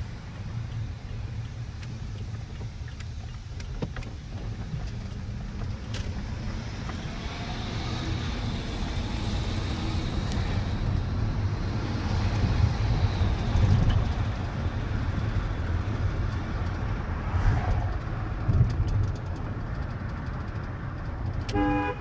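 Inside a Ford F-150's cab while driving: steady engine and road rumble that builds a little as the truck gets moving. Right at the end the truck's horn sounds briefly, set off by the left turn signal, which has been wired to the horn as a prank.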